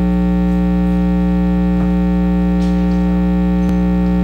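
Loud, steady electrical mains hum in the sound system, a buzz made of several unchanging tones, with a faint click near the end.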